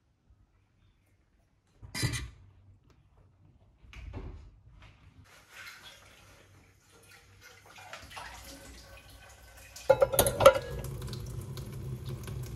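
Metal pots and a stainless wire dish rack clattering as they are handled and set down: a few separate knocks, then louder clanking near the end.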